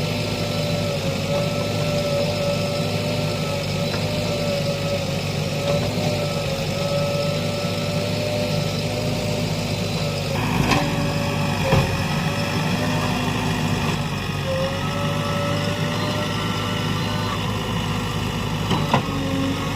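JCB 3DX backhoe loader's diesel engine running steadily with a constant whine, and a few sharp clanks about halfway through and again near the end.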